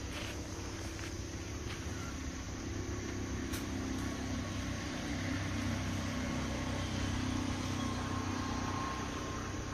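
A low engine hum, a motor vehicle, that grows louder through the middle and eases again near the end.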